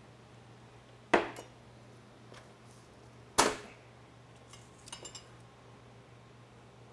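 A metal ladle and spoon knocking against the dishes while porridge is served from a pot into a bowl: two sharp knocks, about a second in and about three and a half seconds in, then a few light clinks of a spoon in the bowl around five seconds.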